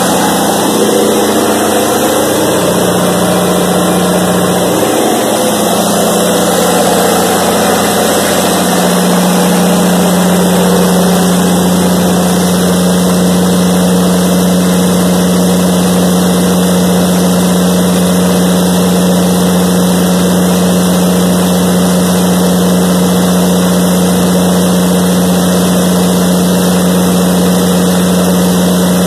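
Caterpillar 3406 inline-six turbocharged diesel generator set running loud and steady at a governed 1800 rpm, carrying a heavy load from a load bank, with a strong, even low hum.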